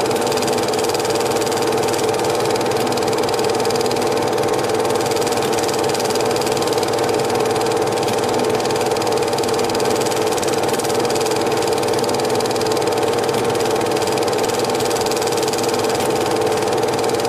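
Cine film projector running: a steady mechanical whir with a fast, even clatter from the film transport.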